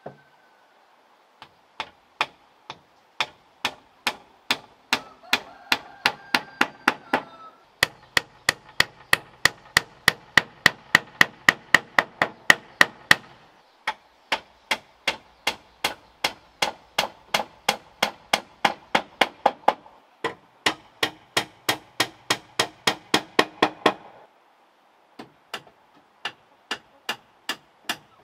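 Steady hammering, about three blows a second in runs of several seconds with short pauses, fastening split-bamboo slats to a wooden frame.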